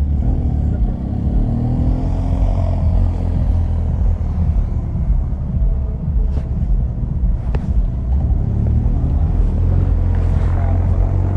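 A motor vehicle running with a steady low rumble, with a brief rise and fall in engine pitch about two seconds in.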